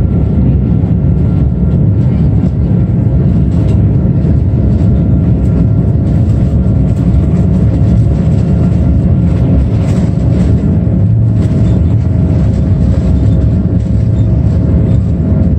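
Steady, loud rumble inside an Airbus A330 airliner's cabin: jet engine and airflow noise with a low drone and a few steady hum tones, plus faint light rattles.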